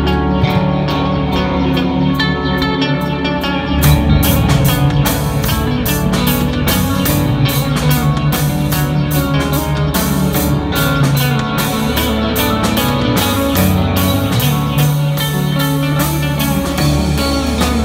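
Live rock band playing an instrumental passage on electric guitars and drum kit. The drums and cymbals come in fully about four seconds in, and the band plays on together.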